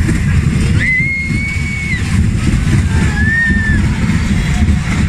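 Wind buffeting the microphone on a moving fairground ride, with the ride rumbling underneath. A child's high-pitched squeal is held for about a second starting about a second in, and a shorter one comes near three seconds.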